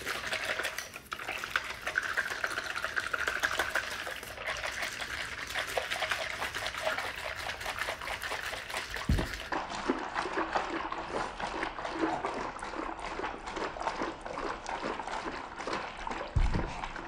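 A bottle of pulpy peach nectar being shaken hard to mix the pulp, the juice sloshing rapidly back and forth inside it. A dull thump comes about halfway through and another near the end.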